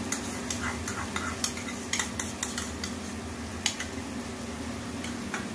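Irregular clinks and scrapes of a metal spoon against a bowl and a steel spatula in a kadai as cashew paste is scraped into the pan, mostly in the first few seconds, over a low sizzle of masala frying in oil.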